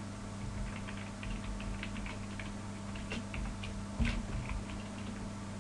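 Computer keyboard being typed on in light, irregular key clicks, with one louder knock about four seconds in, over a steady low electrical hum.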